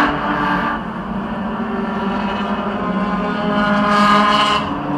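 Race car engine noise, a steady pitched drone that swells briefly about four seconds in.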